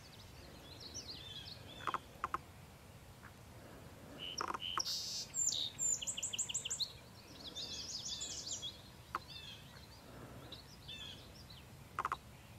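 Songbirds calling and singing: scattered high chirps, with a fast run of bright repeated notes around the middle. A few short sharp sounds stand out about two seconds in and near the end, over a low steady background hiss.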